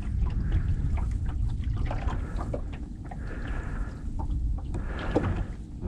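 Background noise on a small fishing boat on the water: a steady low rumble with scattered faint clicks and knocks.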